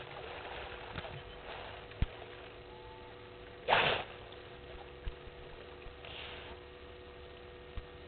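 A hippo blowing out one short, sharp puff of breath through its nostrils as it surfaces, about halfway through. A faint steady hum and a few soft knocks lie underneath.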